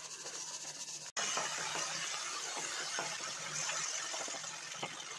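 Wooden spatula stirring and scraping thick ground-rice paste in a hot nonstick pan, over a steady sizzle with a few soft clicks. The sound cuts out briefly about a second in.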